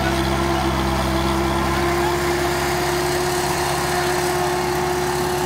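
A Romanian tractor's diesel engine running steadily under load, driving a PTO-powered forage chopper that is being fed maize stalks. It makes a constant, even hum with no change in speed.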